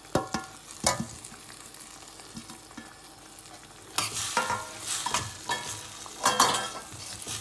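Fried okra tipped from a steel plate into a stainless steel pan of cooking curry sauce, with a couple of metal clinks in the first second. From about four seconds in, a metal spoon stirs and scrapes the pan in repeated strokes while the sauce sizzles.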